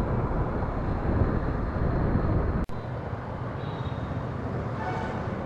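Yamaha FZ-S FI 150 cc single-cylinder motorcycle riding at road speed, its engine under a steady rush of wind on the microphone. About two and a half seconds in, the sound cuts off abruptly to a quieter steady engine and traffic noise as the bike creeps in a queue of motorcycles.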